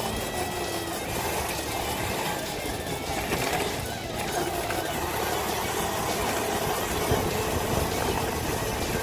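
Wind and road noise rushing over the microphone of a homemade electric scooter as it is ridden along a paved road, with music faintly underneath.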